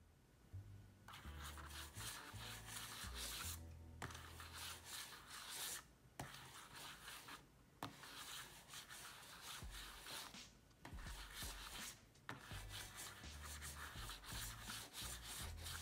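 Mouse on Hyperglide skates sliding back and forth across a Razer Firefly hard mouse pad. It makes a dry rubbing scrape in quick sweeps, with short pauses every second or two, on a hard surface that drags on these skates.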